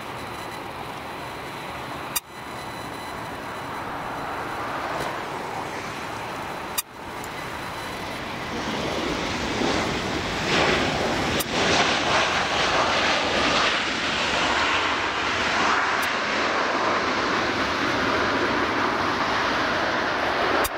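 Jet airliner engines running on the ground, a steady rush that grows louder from about nine seconds in as an airliner rolls along the runway. Three sharp clicks break it: about two, seven and eleven seconds in.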